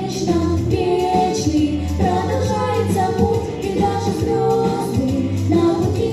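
Two young girls singing a duet over instrumental accompaniment with a steady bass.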